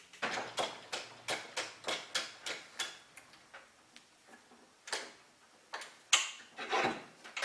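Handsaw blade being stroked back and forth across a hardened-steel square key, short sharp scrapes about three a second for roughly three seconds, then a few scattered strokes; the blade barely cuts the hardened steel.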